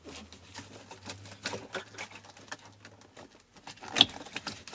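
Plastic wiring harness connectors and the main relay of a 1992 Acura Legend being handled and unplugged under the dash: a run of small irregular clicks and rattles, with one sharp click about four seconds in as a connector comes free.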